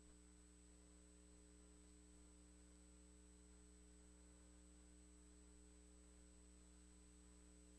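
Near silence: a faint steady hum and hiss with no events.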